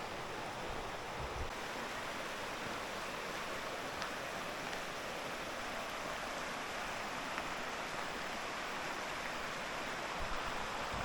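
Steady, even rush of a mountain stream flowing through a gorge.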